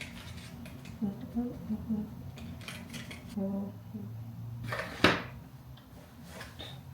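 Scattered light clicks and taps of small objects being handled, with a louder sharp click and a short hiss about five seconds in; a faint voice murmurs at moments.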